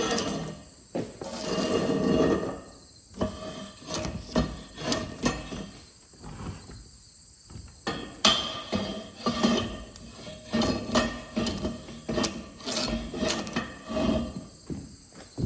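Hammer blows on a steel rod driving a worn-out bearing out of a baler's housing: repeated, irregular metal strikes that come thick and fast through most of the stretch. A short rushing noise is heard in the first couple of seconds.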